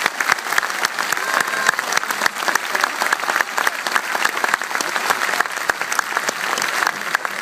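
Large audience applauding, a dense steady clatter of clapping.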